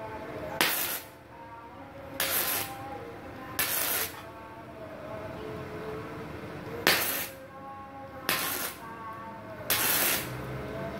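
Gasless flux-core MIG welder at about 70 amps on thin galvanized steel, the arc struck in short stitches: about six hissing bursts, each about half a second, roughly one every second and a half with a longer pause midway.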